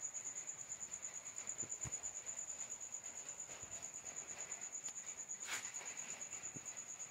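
A cricket chirping in a steady high trill of rapid, even pulses, with a single sharp click about five and a half seconds in.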